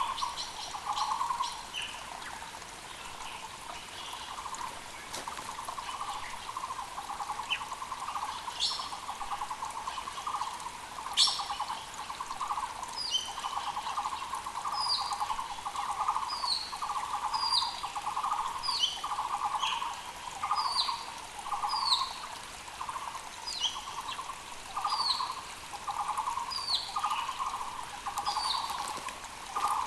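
Muller's barbets calling steadily, a continuous run of rapid low pulsed notes in repeated phrases. From about the middle on, another bird adds short high down-hooked notes about once a second, over the faint steady rush of a mountain creek.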